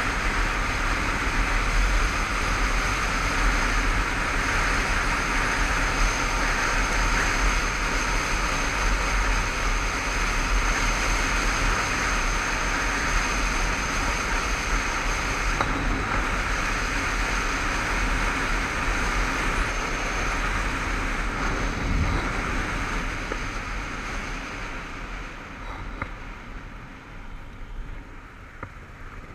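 Wind rushing over the microphone mixed with a Honda CBF500 motorcycle engine running steadily at road speed. The noise grows quieter over the last few seconds.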